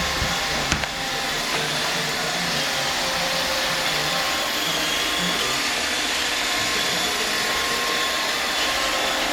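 Roomba robot vacuum running: a steady whirring hiss with a low hum that pulses on and off, and a single light click a little under a second in.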